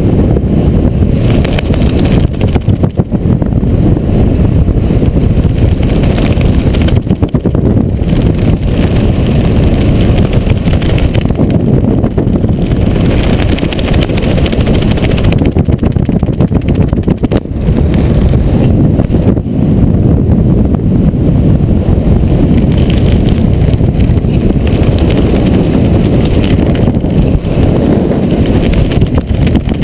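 Loud, steady wind rumble buffeting the camera's microphone during a descent under an open parachute canopy.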